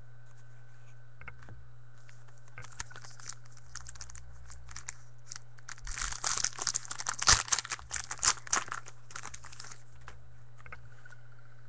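Foil trading-card pack wrapper being torn open and crinkled by hand. It starts with scattered crackles and becomes loud, dense crinkling from about six to ten seconds in.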